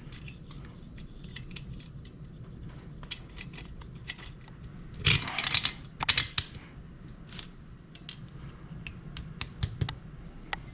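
Small metal clicks and clinks of a spark plug and hand tools being worked on a Stihl FS80 string trimmer's engine during reassembly, irregular throughout, with a louder rattling clatter about five seconds in.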